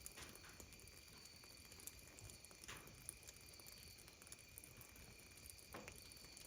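Near silence: faint room tone with a steady thin high whine and a few soft ticks.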